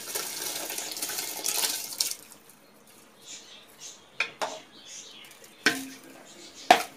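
Rice poured into a pot of boiling water, a rushing splash for about the first two seconds; then a steel slotted ladle stirs it and knocks a few times against the aluminium pot.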